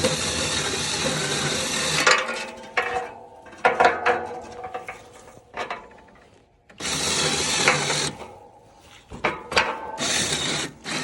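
A winch motor runs steadily and cuts off about two seconds in, then the metal winch hook and cable clank and rattle as they are handled; the motor runs again briefly for about a second near the middle.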